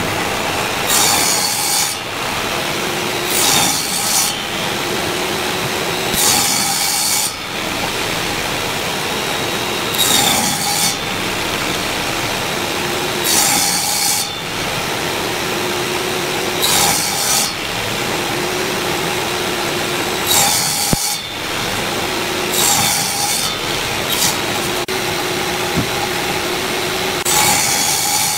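Table saw running steadily while a pine board is pushed over the blade again and again, about nine short cutting passes roughly three seconds apart, each a brief rasp of the blade biting into the wood to cut a row of shallow notches.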